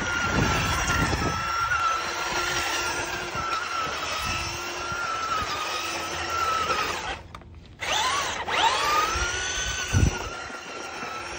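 Small electric RC truck's motor whining as it spins its wheels through snow, the pitch wavering with the throttle. Near the middle it cuts out for a moment, then winds up quickly in pitch again; a single low thump follows a couple of seconds later.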